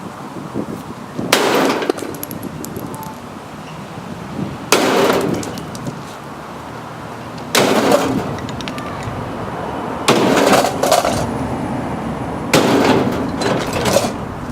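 Five heavy hammer blows, spaced about two and a half to three seconds apart, smashing an old Dearborn gas heater. Each blow brings a crash of breaking pieces and rattling metal.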